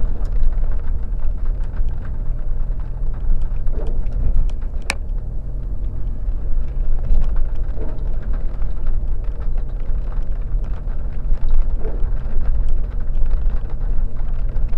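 Off-road vehicle's engine running at low, steady revs on a rough trail, with scattered clicks and knocks from stones and bumps, one sharper knock about five seconds in.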